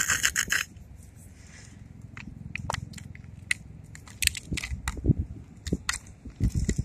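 Wet squishing slime and crinkling thin plastic as a rubber squeeze toy is pressed down into slime in a clear plastic tray to suck it up: a loud crackle at the start, then a run of irregular clicks, crackles and soft squelchy thuds over a low rumble.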